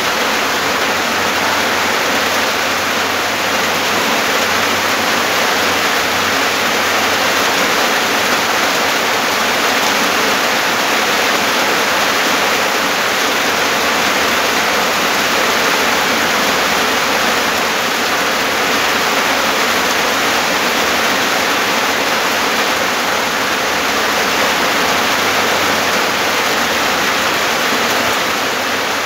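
Rain falling steadily: a loud, even hiss with no breaks.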